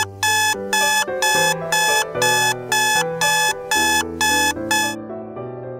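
Digital alarm clock beeping about twice a second, a sharp high electronic tone that stops about five seconds in, over background music with a moving bass line and chords.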